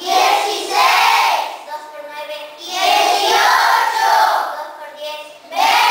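A class of schoolchildren chanting the multiplication table aloud in unison in Spanish, in short phrases of a second or two with brief pauses between.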